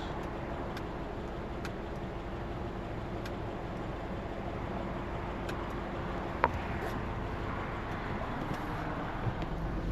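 1999 Honda CR-V's four-cylinder engine idling steadily, heard from inside the cabin, with a single click about six and a half seconds in.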